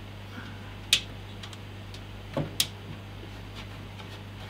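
A few sharp metal clicks as small power-supply mounting screws are fitted by hand into the steel rear panel of a PC case: one about a second in, then two close together a second and a half later. A steady low hum lies underneath.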